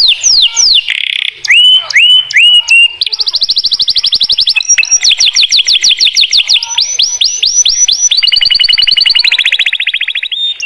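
White canary singing a loud, varied song of rolling trills: strings of falling whistled notes, a few rising notes, then very fast rattling trills, ending in a rapid two-pitched roll.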